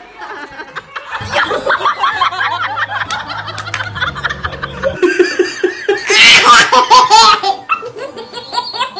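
People laughing hard, belly laughs and giggles overlapping, loudest about six seconds in.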